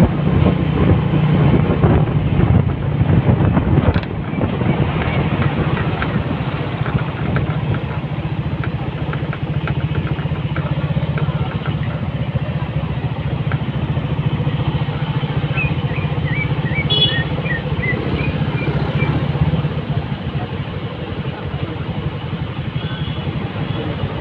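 Motorcycle engine running while riding slowly in traffic, with wind rushing over the microphone for the first four seconds, then a steady engine hum that eases off near the end as the bike comes to a stop.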